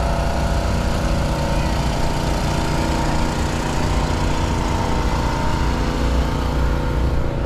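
A vehicle engine running steadily close by, a low rumble with a steady mechanical hum over street traffic noise.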